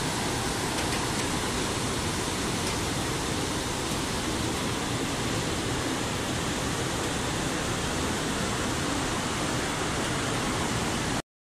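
Steady rushing noise of a swollen, muddy river in full flood, with no change in level, stopping abruptly near the end.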